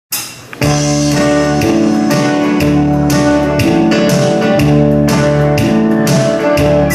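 Live band music led by an electric guitar strummed to a steady beat, coming in fully about half a second in after a brief first note.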